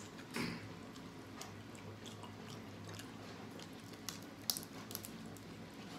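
Close-up eating sounds: chewing and wet squishing, with scattered small clicks as crawfish shells are pulled apart, and one sharper click about four and a half seconds in.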